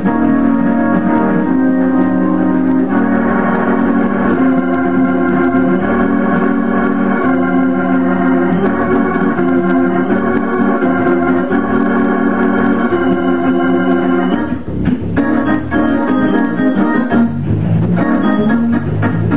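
Hammond organ played with held full chords that change every second or two. About fifteen seconds in, the playing turns to shorter, quicker, choppier notes.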